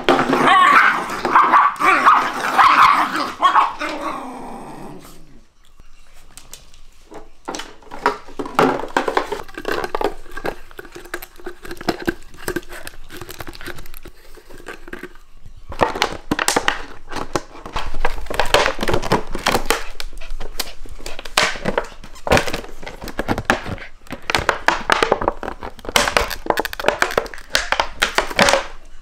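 Two Shiba Inus growling and barking as they scuffle in the first few seconds, then a long run of quick crackling clicks, like a plastic bag being crinkled as the dogs play with it.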